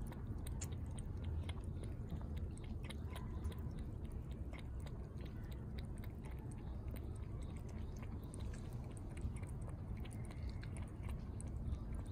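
A tabby-and-white cat lapping water from a plastic tub: a steady run of small wet clicks of the tongue, over a low background rumble.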